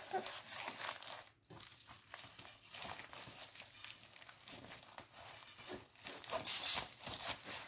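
Plastic packaging crinkling and rustling as it is handled: a string of soft, irregular crackles.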